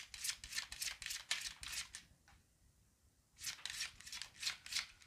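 A deck of tarot cards being shuffled by hand: a quick run of crisp card flicks, several a second, that stops for about a second midway and then starts again.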